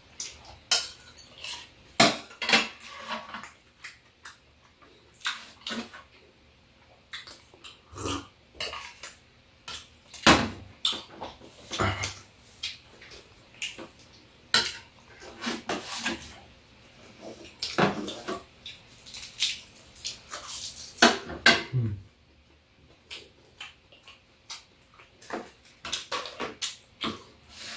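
Metal chopsticks and spoons clinking and scraping against bowls and a metal serving tray while eating, in short irregular clinks with pauses between them.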